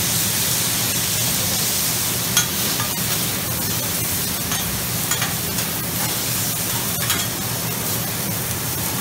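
Noodles, chicken and shrimp sizzling on a flat-top griddle over a steady low hum, with a few sharp clicks of metal spatulas against the griddle as the cook turns the food.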